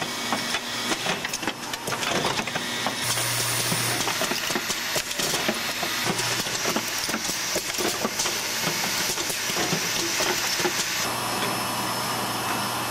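Automated parts-handling and assembly machinery running, with rapid mechanical clicking and clatter over a steady hiss and a low hum. The sound changes abruptly twice, about three seconds in and again near the end.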